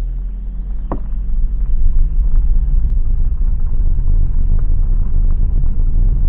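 Jeep's engine and tyres rumbling low from inside the cabin as it pulls away onto a gravel road, getting louder about a second and a half in. A single sharp click about a second in.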